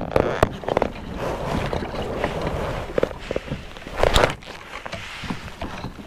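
Rustling and handling knocks on a fishing kayak as a lure is worked with rod and reel, with a louder knock about four seconds in.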